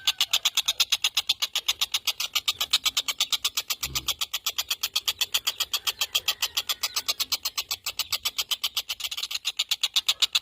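A tengkek buto kingfisher calling in a fast, unbroken chatter of sharp high notes, about eight a second. A brief low thump comes about four seconds in.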